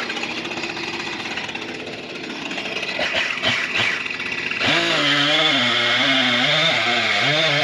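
Two-stroke chainsaw running at idle, then throttled up about four and a half seconds in. It runs loud and fast, its pitch dipping and recovering as the chain cuts into the oak.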